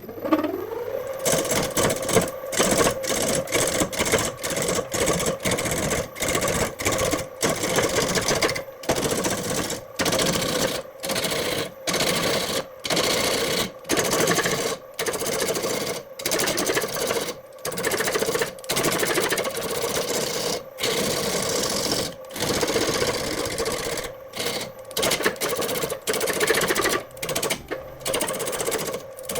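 An electric power-tool motor spinning up and then running at a steady pitch with a bright hiss of work, broken into short stretches by frequent brief breaks.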